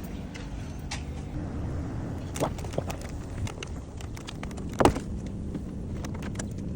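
Scattered clicks and knocks of handling in and around a car over a steady low hum, with one louder knock about five seconds in.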